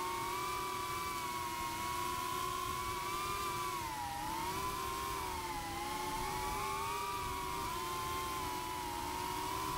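Cinewhoop FPV drone's brushless motors and ducted propellers whining steadily in flight, as heard from the onboard action camera. The pitch wavers and dips a few times as the throttle changes.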